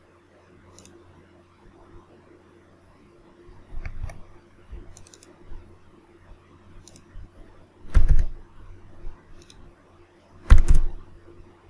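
Scattered computer mouse clicks and keyboard keystrokes, with two louder low thumps in the second half.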